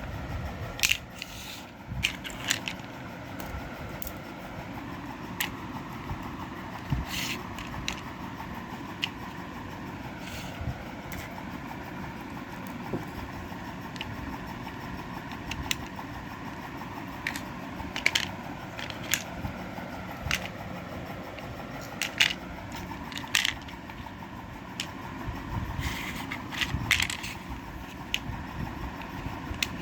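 Irregular clicks, taps and scraping of small hard objects being handled, over a steady background noise. These are handling sounds of the plastic toy gun and its small parts during repair.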